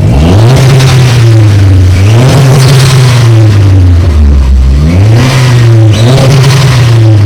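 Turbocharged Mitsubishi 4B11 2.0-litre four-cylinder with a 3-inch exhaust, heard from inside the car's cabin, revved up and held three times, with the revs dropping back briefly about two seconds in and again around four and a half seconds. The exhaust note is loud and deep.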